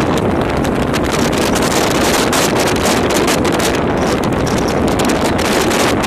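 Storm-force wind blasting across the phone's microphone on an open ferry deck: a loud, unbroken rush of wind noise.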